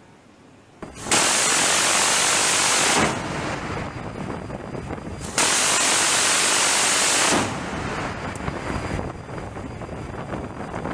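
Phalanx CIWS 20 mm six-barrel Gatling gun firing two bursts of about two seconds each, the shots so fast that each burst is one continuous rasp. Wind and sea noise between and after the bursts.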